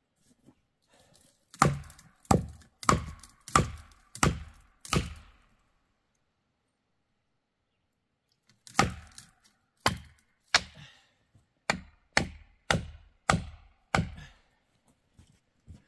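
Sharp, heavy blows driving felling wedges into the back cut of a dead ponderosa pine: a run of about six strikes, a pause of a few seconds, then about nine more at a steady pace.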